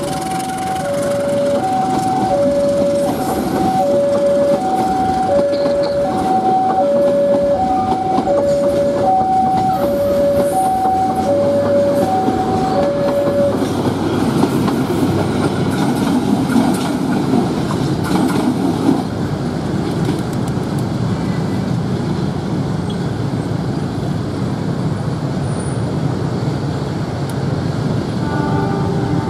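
A passenger train hauled by a CC 201 diesel locomotive rolls past with a steady rumble and clatter of coach wheels on the rails. Over it, a two-tone level-crossing warning alarm alternates evenly between a lower and a higher tone, about half a second each, and stops about 13 seconds in.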